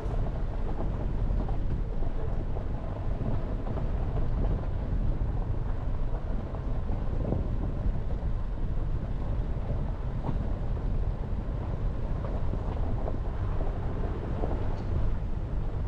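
Jeep Renegade driving along a mountain road: a steady rumble of road, tyre and engine noise, with some wind on the microphone.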